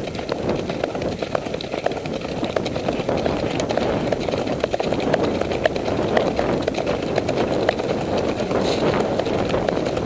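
Hoofbeats of several horses moving fast on a dirt trail, with tack rattling, under a steady rumble of wind on the microphone.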